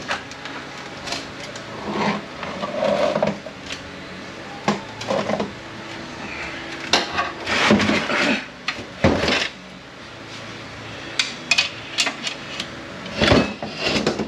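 Stripped Ford AX4N transmission case being tipped and shifted on a metal bench: scattered metal clanks, knocks and short scrapes.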